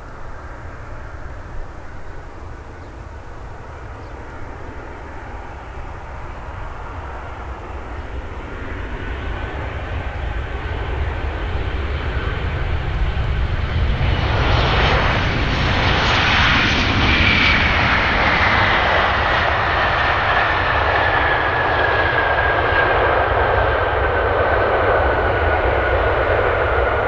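Jet engines of a Boeing 737-800 airliner, growing louder for several seconds and then running loud as the aircraft comes close. A high engine whine glides slowly down in pitch over a steady rumble.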